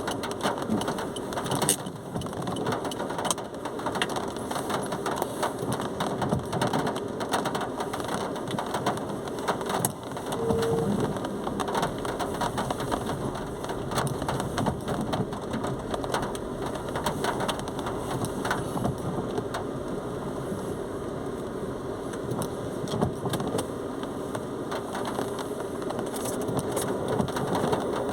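Heavy rain falling steadily, with many drops spattering close by.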